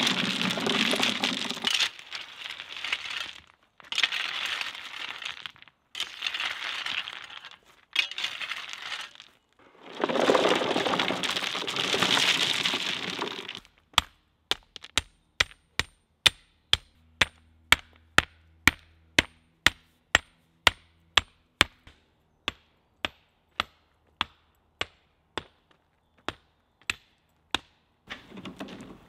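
Stones being tipped out of a wooden wheelbarrow in several rattling pours. From about halfway, a sledgehammer head tamps the stones into a paved path: sharp stone clinks, about two or three a second.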